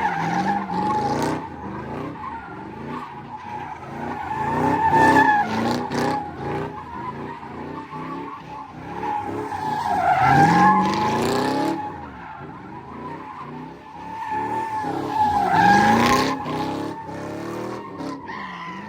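A car sliding with its tyres squealing in a steady high tone while its engine revs rise and fall beneath. The squeal and engine swell loudest three times, about five, ten and sixteen seconds in.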